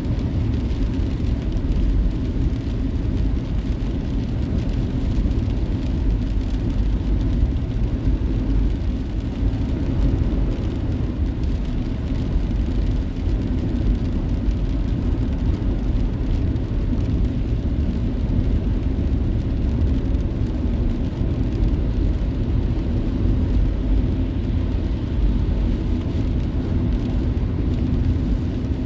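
Steady low rumble of a car driving along a road: tyre and engine noise at an even level.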